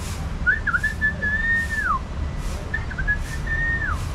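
Clear whistling in two phrases: each a few quick rising notes, then a long held note that glides down sharply at the end.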